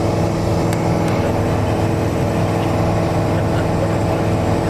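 Piston engine and propeller of a Mooney single-engine light aircraft in flight, heard from inside the cabin. It drones steadily at an even pitch and level.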